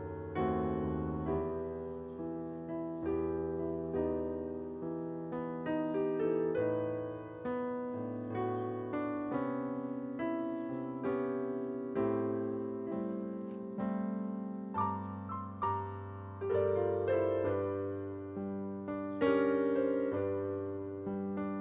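Piano playing slow chords over a bass line, each chord struck and left to ring and fade before the next.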